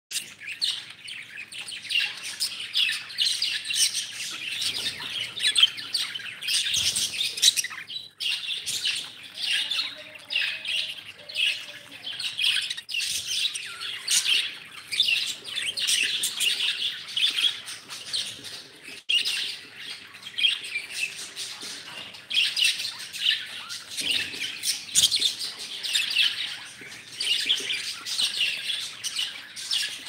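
A flock of budgerigars chattering and warbling, many high chirps overlapping without a break.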